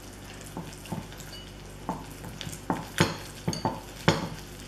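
Wire whisk beating a thick flour batter in a bowl, the wires tapping against the bowl's sides in uneven strokes that get louder in the second half.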